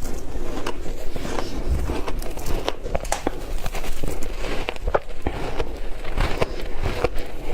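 Ice being bitten and chewed close to the microphone: a continuous run of irregular crunches and crackles.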